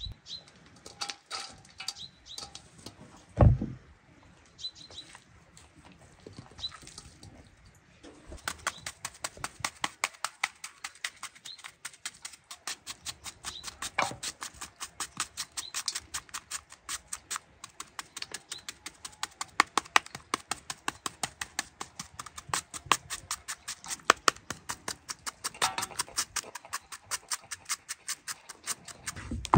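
Rapid, even knife chopping on a board, several quick strokes a second, starting about eight seconds in and running on. Before it come a few scattered taps and one loud thump about three and a half seconds in.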